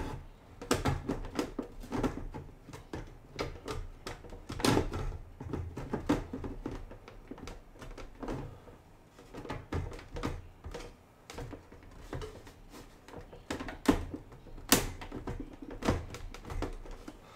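Plastic hull parts of a 1/48 scale Type VIIC U-boat model clicking, knocking and rubbing as the clear rear hull section is slid and clipped into place, in irregular clicks with the sharpest knock near the end.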